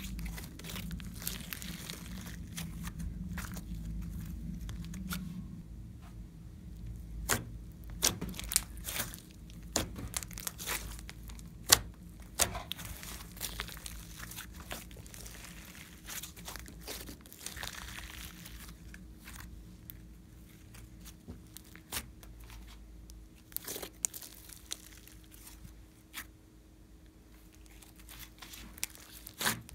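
Glossy slime being squeezed, stretched and folded by hand, with sticky squishing and many scattered sharp pops and clicks, densest a third of the way in.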